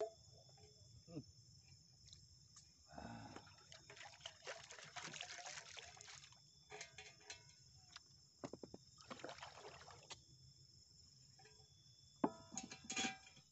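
Near silence: a faint steady high insect drone, with scattered soft clicks and short light rustles.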